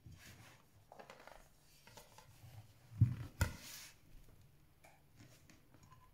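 A ceramic plate is handled and turned over on a cloth-covered table: soft rubbing and shuffling, then two knocks close together about three seconds in as the plate with the cake on it is flipped and set down.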